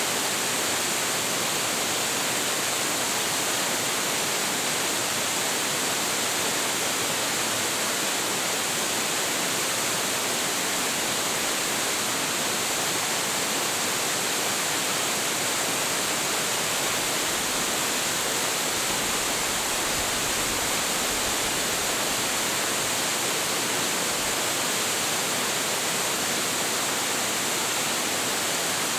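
Large waterfall, Hiji Great Falls, a 25.7 m fall with heavy flow, pouring steadily as a dense, even rush of falling water with a strong hiss.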